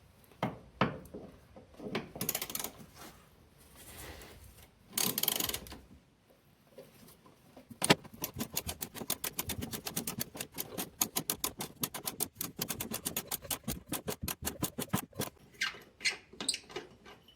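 Ratchet wrench clicking rapidly as a rusty 13mm bolt is wound out of the rear bump stop mount. A few knocks and scrapes come before it as the tool is fitted.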